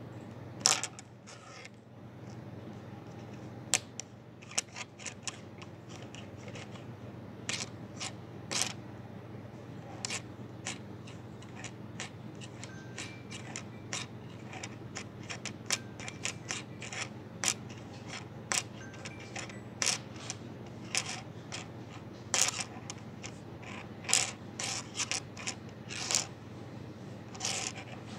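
Automatic hot stamping machine running: a sharp click or clack from its feed and stamping mechanism about every second, irregularly spaced, over a steady low hum.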